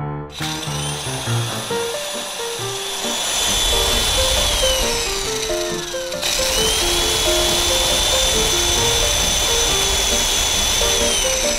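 Immersion blender motor whining as it blends a mixture in a stainless steel saucepan. It spins up, runs steadily and winds down, then starts again about six seconds in and does the same. Piano music plays underneath.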